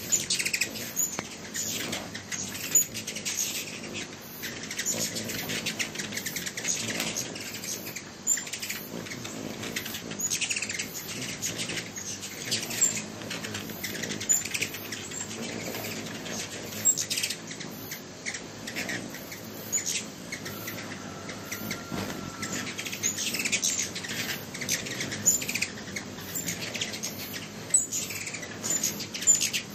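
Hummingbirds at a feeder giving many short, high chips and squeaks, several a second, with some louder chips standing out.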